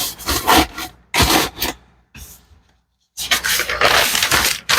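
Paper and cardboard being handled on a table: short scraping and rustling bursts, then a dead-silent gap of about a second, then denser scraping and rubbing.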